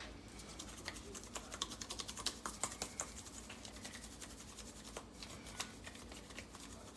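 Quick, irregular small clicks and taps from trimming raw pork ribs by hand and with a knife on the cutting surface, busiest in the first half and thinning out after.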